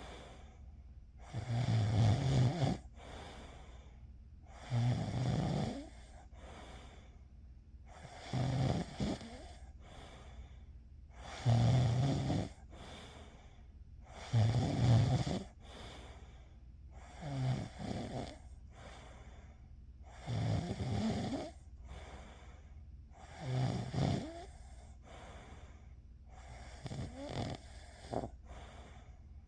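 A person snoring steadily in their sleep: about nine low, rattling snores, one roughly every three seconds.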